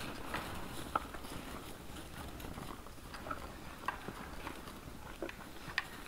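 Wild boars feeding in snow: crunching and chewing feed, with scattered sharp snaps and clicks over a low rustle of rooting and shuffling.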